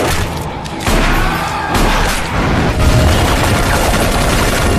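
Rapid rifle gunfire and low booms from a film's action soundtrack, mixed over dramatic music.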